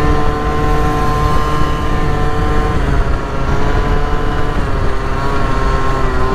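MBK Booster Spirit 50 cc two-stroke scooter engine held at steady high revs while riding, its pitch dipping slightly about halfway and wavering near the end. Wind rushes over the helmet-mounted microphone underneath.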